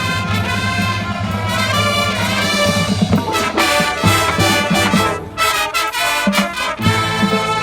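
Marching band brass section playing loud held chords, with drums beneath. There is a brief break a little past halfway before the full band comes back in.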